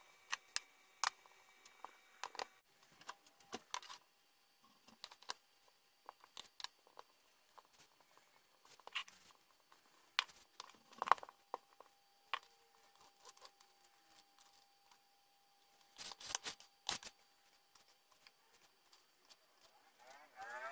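Faint scattered taps, knocks and rustles of cookie dough being handled on a floured wooden worktop: kneaded by hand, rolled out with a marble rolling pin and cut with a knife. A cluster of sharper clicks comes about sixteen seconds in.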